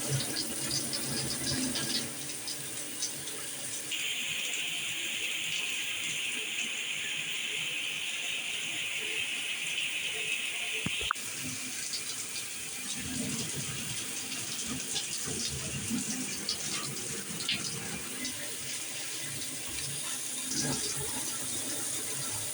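Delta 75641 plastic showerhead spraying water steadily. The spray changes character about 4 s in, then again about 11 s in with a sharp click as the face is turned into another spray setting.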